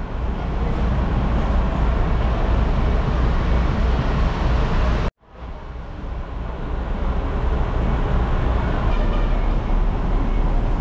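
Steady rumble of road vehicles and traffic, heaviest in the deep bass. It cuts off sharply about five seconds in and fades back in.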